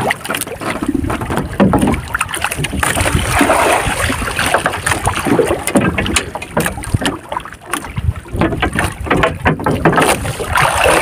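Irregular knocks, bumps and rustling of handling on a small wooden fishing boat, with water sloshing and wind noise on the microphone.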